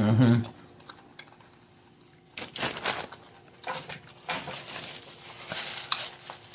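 Boiled seafood shells being cracked, peeled and chewed close to the microphone: irregular crackling, clicking and crunching from about two seconds in, after a short voiced hum at the very start.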